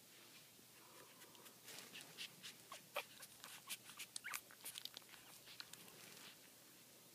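Newborn puppies nursing: a quick run of soft clicks and smacks, with a couple of brief high squeaks, from about two seconds in to about six seconds in.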